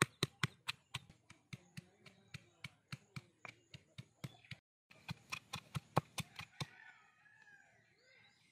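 Knife chopping in quick, steady strikes, about four or five a second. The chopping breaks off for an instant near the middle and stops about two-thirds of the way through.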